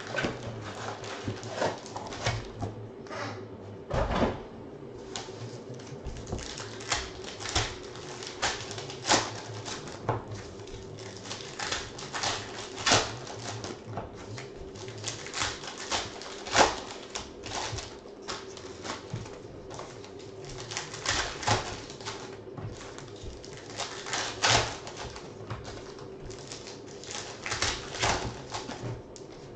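Hands handling trading-card boxes, card stacks and foil wrapper packs: irregular clicks, taps and crinkles of cardboard and foil, over a faint steady hum.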